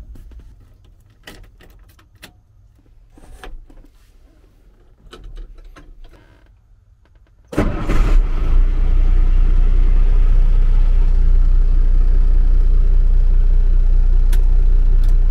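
Scattered clicks and knocks as someone gets into the truck's cab, then about halfway through the truck's engine starts suddenly and settles into a steady idle.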